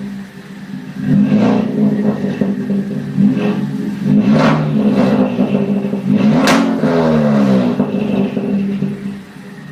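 Ford Focus ST's turbocharged four-cylinder engine through a Flowmaster Super 10 catback exhaust, revved up in several surges, with sharp exhaust pops a few times; the loudest pop comes a little past halfway, and the revs fall away after it.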